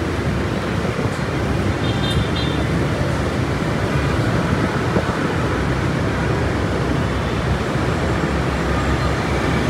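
Steady rumble of dense motorbike and car traffic heard from a moving motorbike, with wind on the microphone.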